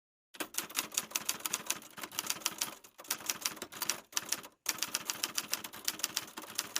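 Rapid typewriter-style keystroke clicks, starting about a third of a second in and running in three stretches, with brief breaks about three and four and a half seconds in.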